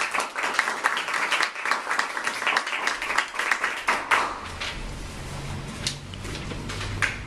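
A small audience applauding, a few people clapping, for about four seconds before it dies away.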